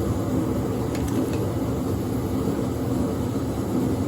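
Steady mechanical hum with a low drone, with a couple of faint clicks about a second in.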